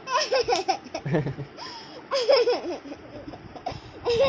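A baby laughing in three short bursts, about two seconds apart.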